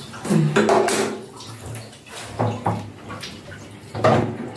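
Water splashing on a wet dog and the tiled shower floor in several short bursts, with a short low vocal sound just after the start.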